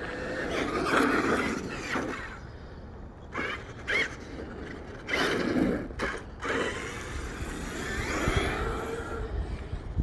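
Traxxas X-Maxx RC monster truck being driven in short bursts of throttle: its brushless electric motor whines up and down about four times.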